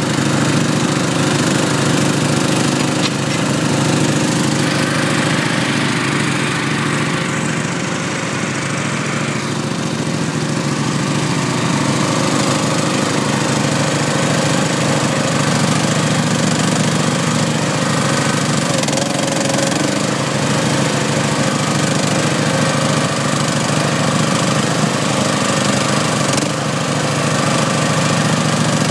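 Great Dane mower's engine running steadily at a constant speed.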